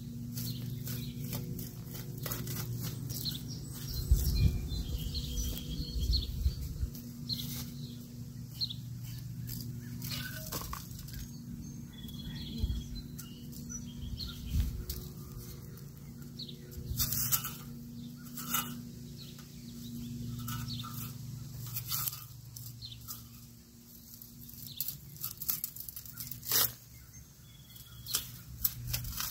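Scattered scrapes, crunches and clicks of a long-handled, foot-pressed bulb planter being worked into dry, hard soil. A low steady hum runs underneath, with a few faint bird chirps.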